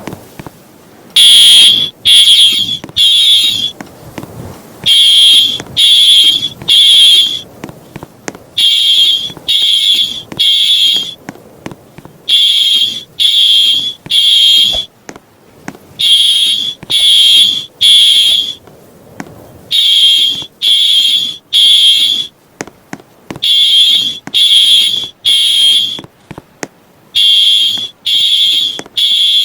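Fire alarm horn sounding the temporal-three evacuation signal: loud, high-pitched beeps in groups of three, each group starting about every four seconds.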